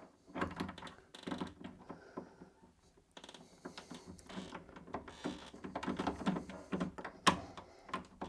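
Door handle being fitted onto its studs on the door and twisted into place: a run of irregular clicks, scrapes and rattles, with one sharp knock near the end.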